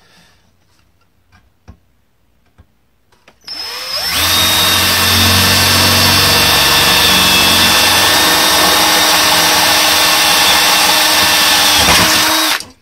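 Cordless drill drilling rivet holes through an aluminum radiator fan shroud: a few light clicks, then the drill spins up about three and a half seconds in and runs at a steady pitch for about nine seconds before stopping abruptly near the end.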